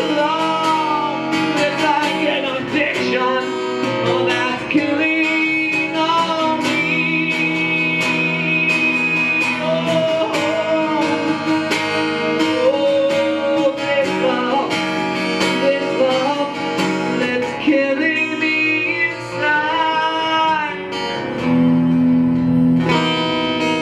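A rock song performed acoustically: a strummed acoustic guitar with a man singing lead.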